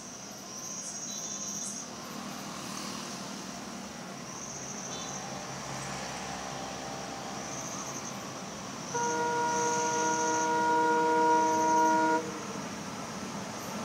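An approaching train's locomotive horn sounds one long chord-like blast of about three seconds, starting about nine seconds in and cutting off sharply. Crickets chirp in short repeated bursts throughout.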